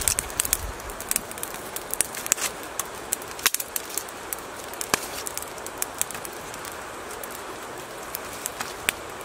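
Small wood fire crackling, with irregular sharp pops and snaps over a steady hiss.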